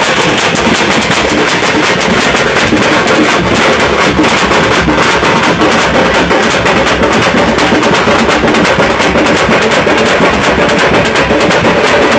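A troupe of large double-headed drums struck with sticks, played together in a fast, loud, unbroken rhythm.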